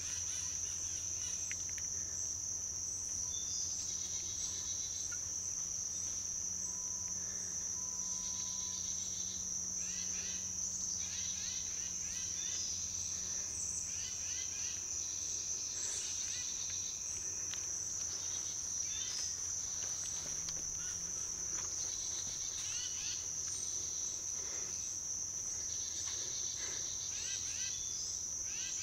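Steady, high-pitched chorus of crickets and other insects trilling without pause. Shorter, intermittent insect calls come and go over it.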